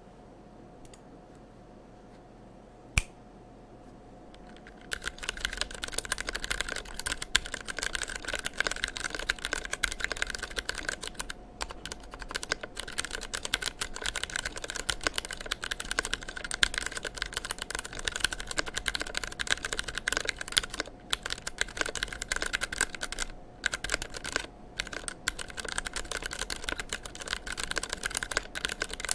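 TEX Yoda II mechanical keyboard with Ergo Clear switches on 62 g Sprit springs and GMK keycaps being typed on quickly and continuously. Typing starts about five seconds in, after a quiet start broken by a single click around three seconds in.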